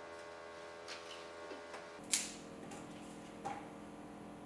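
A few light clicks and taps, the sharpest about two seconds in, from hands peeling ripe bananas, over a faint steady hum.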